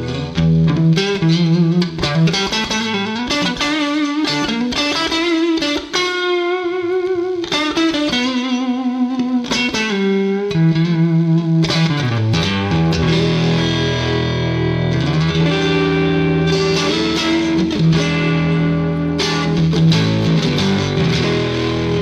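1980 Gibson ES-335 TD semi-hollow electric guitar played through an amplifier: picked single-note melodic lines with bent notes and vibrato, over held lower notes.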